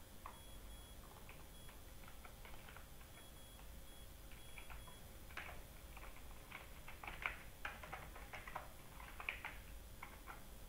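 Faint clicks of computer keyboard keys and a mouse, a scattered few at first, then a quicker run of keystrokes and clicks in the second half as a file name is typed and saved.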